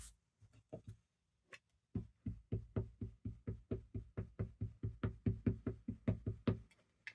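Rubber stamp being inked with an ink pad: a few light knocks, then from about two seconds in a fast, even run of taps, about six a second, for roughly five seconds, stopping near the end.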